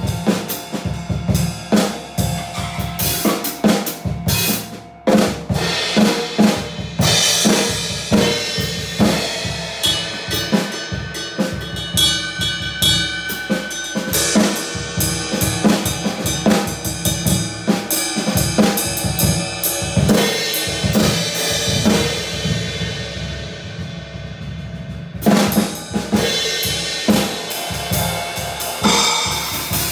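Drum kit being played: a busy run of snare and bass drum strokes with cymbals. Near the end the cymbal ringing dies away briefly before loud hits start again.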